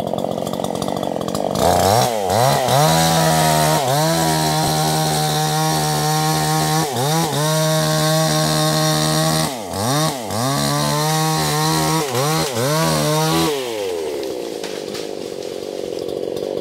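Two-stroke chainsaw revved up to full throttle about two seconds in and cutting into the trunk of a small tree, its revs dipping briefly several times as the chain bites into the wood. Near the end it drops back to idle.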